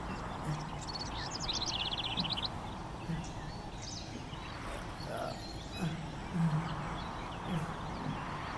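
A small bird singing a rapid trill of high notes about a second in, over steady outdoor background noise. Short low hums come and go, the loudest about six seconds in.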